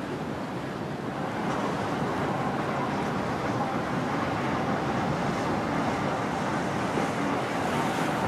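Steady rush of water and boat engines running, with wind on the microphone, growing a little louder about a second in.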